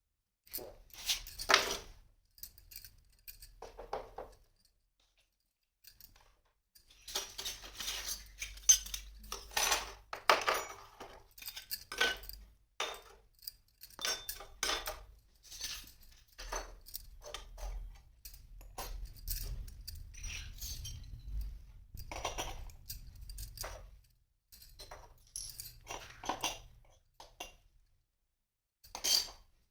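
Toy kitchen-set pieces (small dishes, pots and utensils) being handled and set down, knocking together in irregular clinks and clatters with short pauses.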